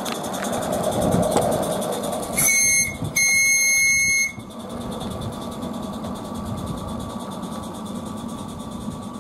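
Miniature coal-fired live-steam locomotive, a Roundhouse Billy, running past with its wagons, loudest about a second in. Then a locomotive whistle sounds twice, a short blast and a longer one on the same steady high note, after which the train's running carries on more quietly.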